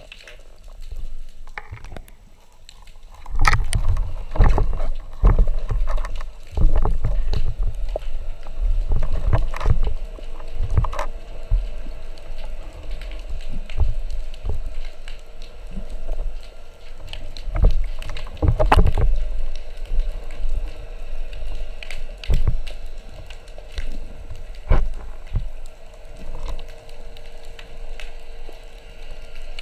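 Underwater camera audio: muffled knocks and thumps against the waterproof housing with water rushing past, coming irregularly and thickest in the first two-thirds, over a faint steady hum.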